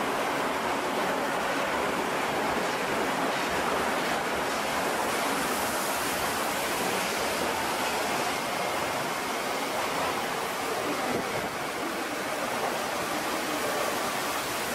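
Osaka Metro Midosuji Line 30000-series subway train pulling out of an underground station and running away into the tunnel. Its wheels and running gear make a steady rushing noise on the track.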